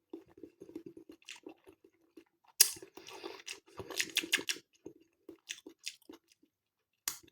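A person chewing a mouthful of soft tinned pork sausage, with irregular wet mouth noises and a few short clicks and rustles.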